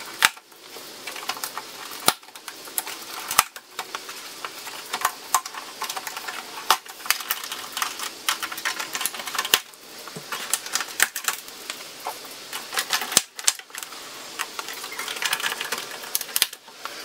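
Plastic push-pin retainer clips clicking and snapping as a felt trunk lid liner on a 2010 Toyota Corolla is pried off with a plastic trim removal tool: many irregular sharp clicks, with scraping and rustling of the liner in between.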